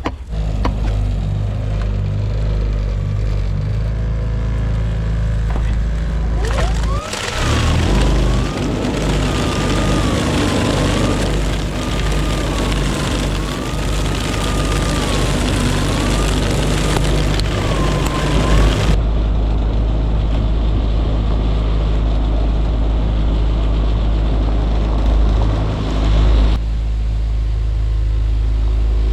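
Truck engine running steadily. For about twelve seconds in the middle it is joined by a loud rushing noise carrying a wavering, whistle-like tone that rises and falls every couple of seconds.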